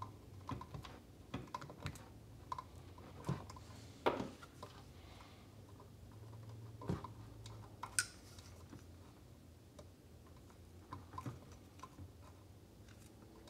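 Faint, scattered clicks and rustles of insulated wires and a plastic wire nut being handled and twisted together by hand, with a few sharper clicks about four, seven and eight seconds in.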